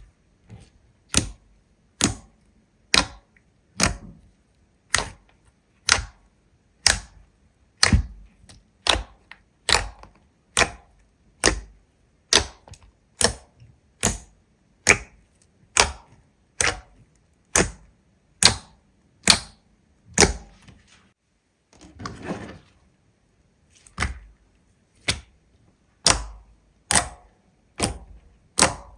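A long run of sharp, crisp clicks, evenly spaced at about one and a half a second, broken once a little past two-thirds through by a softer crackle before the clicks resume.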